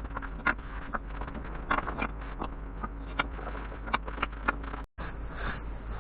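Irregular scratches and knocks of hand work on wood, heard over a steady low hum.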